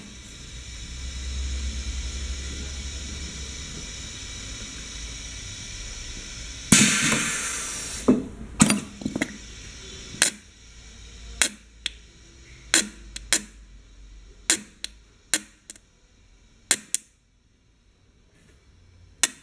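Pneumatic piston filling machine discharging paste through a narrow nozzle while being purged of air: a steady hiss with a low hum, a loud rush of air about seven seconds in, then a string of sharp, irregular pops as air bubbles spit out with the product.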